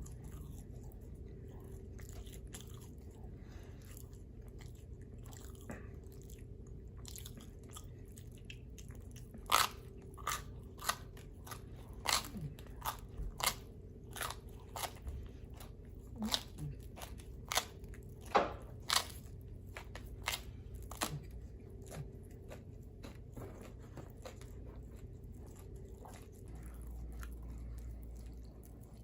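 A person chewing pizza close to the microphone: soft steady chewing, with a run of sharp crunching clicks from about a third of the way in to about two-thirds through.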